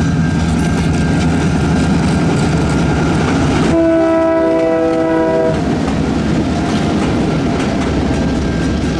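Diesel freight locomotive air horn sounding a chord that changes and gets louder about four seconds in, then stops about five and a half seconds in. Steady engine rumble and wheels on rail continue underneath as the locomotives move past.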